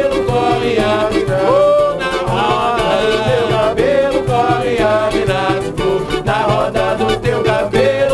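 Samba played live on cavaquinho, pandeiro and acoustic guitar, with a man's voice singing over the strumming and the pandeiro's beat.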